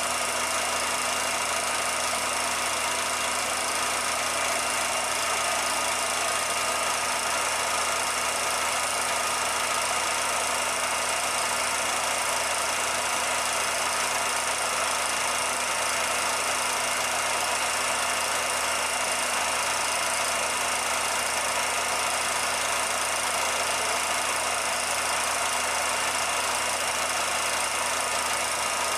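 A steady, unchanging mechanical drone with a constant hum and hiss, no rises, falls or breaks.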